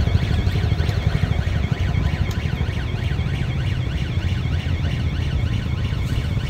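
A small engine running steadily at a fast, even idle.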